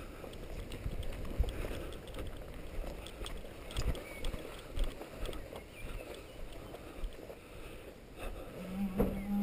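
Rubbing, rumble and scattered knocks of a body-worn camera jostled against costume and gear as the wearer walks, with wind on the microphone. About a second before the end, a steady low tone starts.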